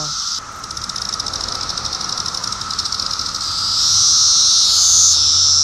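Brood X periodical cicadas calling in a dense chorus: a high, hissing buzz over a steady lower drone. About half a second in, the high buzz turns into a rapid pulsing, then swells louder from about three and a half seconds, rising in pitch briefly near the end.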